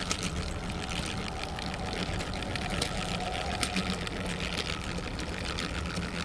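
Plastic Strandbeest model walking, its crank-driven legs clattering in a steady run of small clicks over a continuous whirr.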